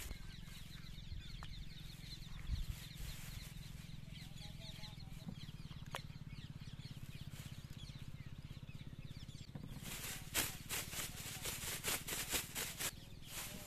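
Thin plastic carrier bag crinkling and rustling in quick, irregular bursts as it is handled, starting about ten seconds in, over a steady low hum.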